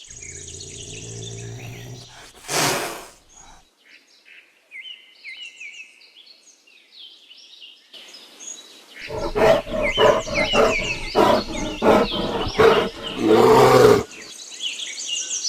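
Margay calling: a short low call and a single loud burst early on, then, after a few seconds with only bird chirps, a long run of rapid repeated growl-like pulses lasting about five seconds. Birds chirp in the background throughout.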